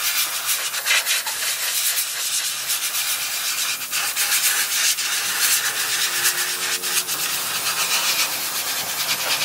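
Gravity-feed compressed-air spray gun spraying paint: a steady hiss of air and atomised paint, with a few brief dips as the trigger eases.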